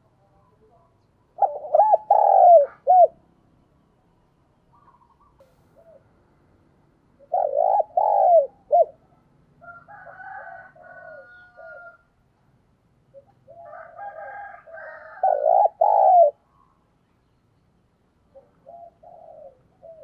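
Spotted dove cooing its song: three loud phrases of a few low hooting notes each. Fainter, higher-pitched calls come between the second and third phrases.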